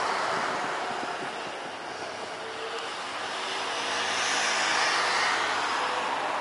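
Airbus A330 airliner's turbofan engines running at taxi power as it rolls along the runway: a steady jet rumble and hiss, with a high whine that swells about four seconds in and eases off near the end.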